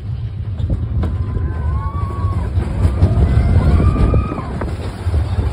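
Big Thunder Mountain Railroad mine-train roller coaster running along its track: a heavy, rough low rumble from the train and rushing air, with riders letting out several long, drawn-out yells over it.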